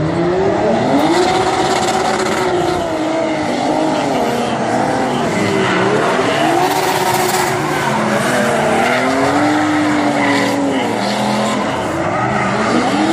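Two drift cars sliding in tandem: their engines are held high and revved up and down in repeated rising and falling swells, with the tyres squealing and spinning.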